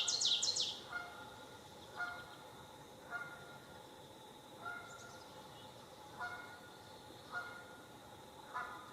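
Goose honking: short single honks repeating about every second or so, roughly seven in all. A bird's rapid trill of falling high chirps ends just under a second in, and a faint steady high insect drone runs underneath.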